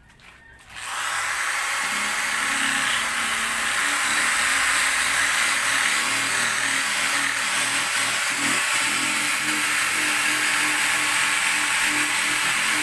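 Handheld corded electric rotary polisher switched on about a second in and running steadily, its pad pressed against a faded plastic headlight lens to sand and clear it.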